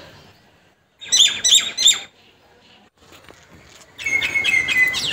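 Small birds chirping in two bursts: three quick falling chirps about a second in, then a faster run of high chirps over a held note about four seconds in.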